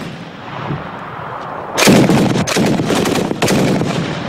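Kord 12.7 mm heavy machine gun firing short bursts, each report ringing out in an echo. The loudest burst comes about two seconds in.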